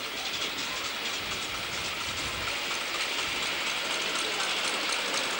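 Ride-on live steam miniature locomotive passing close by on its track: a steady hiss of steam with rapid fine chuffing, and a low rumble that swells about two seconds in as it goes past.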